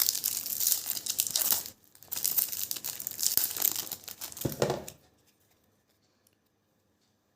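Clear plastic wrapper of a Topps Slam Attax trading-card pack being torn open and crinkled, in two bursts lasting about five seconds together, then stopping.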